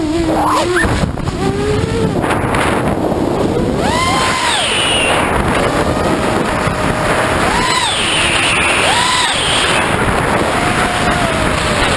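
Electric motors and propellers of a small FPV drone whining in flight, the pitch swooping up and down several times as the throttle changes, over a steady rush of wind on the onboard microphone.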